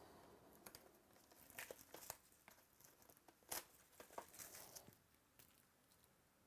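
Packaging of a box of baseball cards being torn open and crinkled: soft, scattered crackles and clicks, with a sharper snap about three and a half seconds in.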